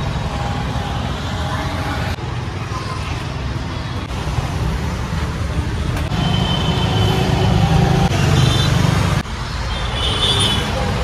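Street traffic noise with motor vehicles running nearby, a steady low rumble. It breaks off abruptly about two seconds in and near nine seconds.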